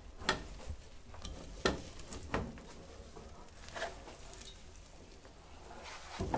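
A metal spoon stirs and scrapes sticky toasted corn kernels coated in thickened panela syrup around a metal pot, giving a few sharp scrapes and clicks at irregular moments. The kernels are being kept moving so the caramel does not set into one block and they come away loose.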